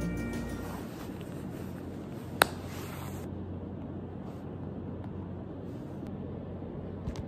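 Steady low room noise, with one sharp tap about two and a half seconds in and a fainter tap near the end. A music track fades out in the first second.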